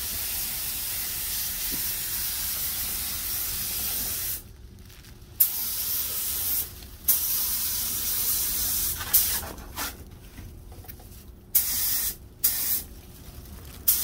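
Paint spray gun hissing while spraying paint: one long steady spray of about four seconds, then several shorter bursts with gaps between them as the trigger is let go and pulled again.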